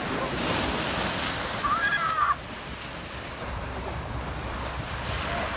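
Ocean surf washing onto the beach, with wind on the microphone. The wash swells over the first two seconds and drops off sharply just after, with a short high cry at that moment.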